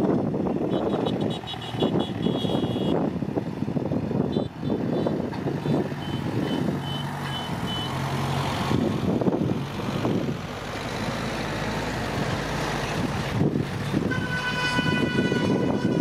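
Dump truck engines running under load, with rapid high beeping twice in the first half and a vehicle horn sounding near the end.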